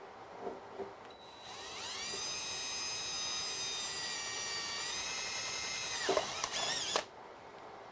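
Cordless DeWalt drill drilling a hole through the scroll saw's arm. The motor whine rises as it spins up about a second in, holds steady, wavers in pitch near the end and stops.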